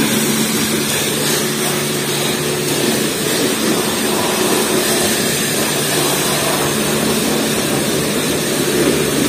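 Steady machine noise of a self-service car wash: pump equipment running with a low hum under an even hiss.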